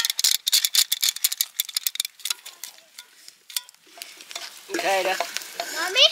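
Food being stirred in a hot frying pan: a quick run of clinks and crackles over the first two seconds, then a quieter sizzle. A short, high, sliding voice is heard twice near the end.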